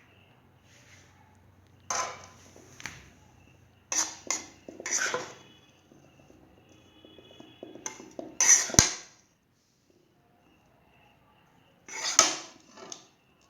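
Metal kitchen utensils and pans clattering and knocking in a series of separate short bursts, the loudest a sharp knock about two-thirds of the way through.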